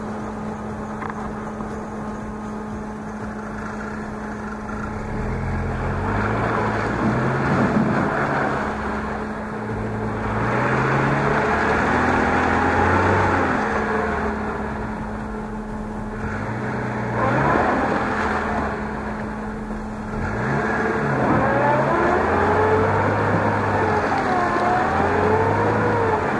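Chevrolet Niva's engine revving up and down repeatedly, its pitch rising and falling again and again, as the car sits bellied on its axle in a rut and tries to pull free.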